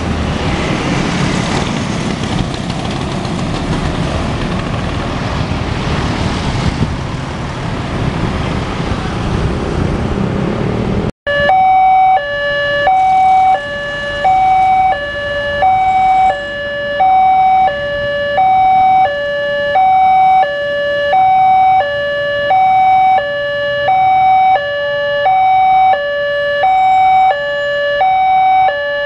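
A steady, broad rumbling noise runs until a sudden break about 11 seconds in. Then a railway level-crossing warning alarm sounds loudly. Two electronic alarms with different tones play together, stepping between a higher and a lower note about once a second, over and over.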